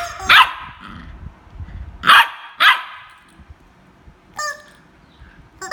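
Welsh corgi puppy barking in play: three short, sharp barks, two of them close together about two seconds in, then a fainter brief sound near the end.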